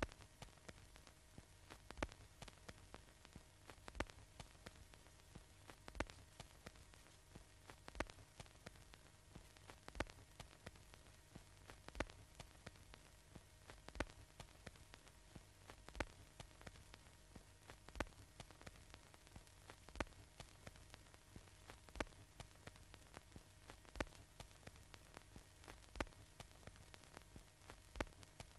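Near silence: faint steady hiss and low hum, with a sharp click about every two seconds and fainter ticks between them.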